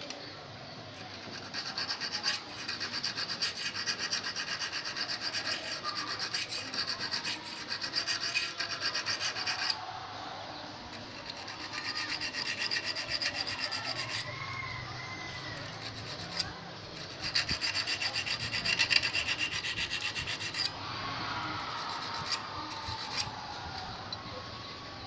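Small needle file rasping quickly back and forth on the point and barb of a steel fishing hook. The strokes come in three long runs with short pauses between.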